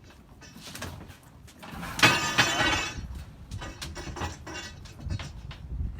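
A loud clattering crash about two seconds in, lasting about a second, among lighter knocks and clinks.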